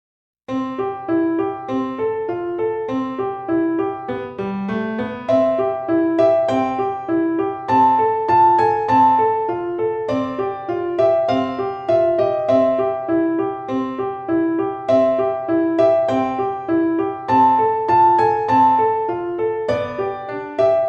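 Background music: a gentle piano tune with a repeating figure, starting about half a second in.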